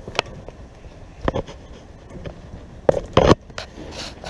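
A few scattered knocks and scuffs from someone climbing up onto a platform. The loudest is a pair of thumps about three seconds in.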